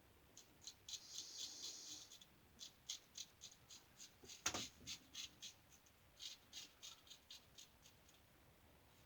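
New Gem lather catcher single-edge safety razor scraping through lathered stubble in quick short strokes, with one longer pass about a second in. There is a single sharper click about four and a half seconds in.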